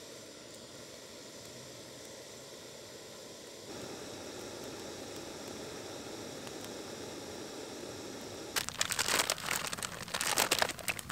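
Backpacking gas-canister stove burning with a steady hiss under a lidded pot of water being brought to the boil. From about eight and a half seconds in, a plastic food bag crinkles loudly as it is handled.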